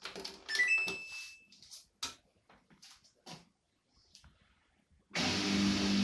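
Samsung ecobubble washing machine's start chime at the press of its start button: a short electronic beep tune stepping up in pitch, its last note held about a second, followed by a few soft clicks. Electronic music starts near the end.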